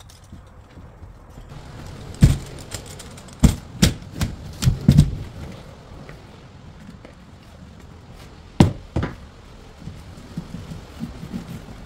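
A series of sharp knocks and thuds from working with a leaded stained-glass panel and a tub of glazing cement on the workbench. There is a cluster of about six knocks two to five seconds in and two more near nine seconds, over faint steady workshop noise.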